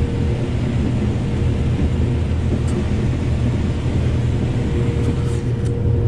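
Combine harvester running in a cornfield, heard from inside the cab: a steady low drone with a constant mid-pitched whine. A few faint ticks sound near the end.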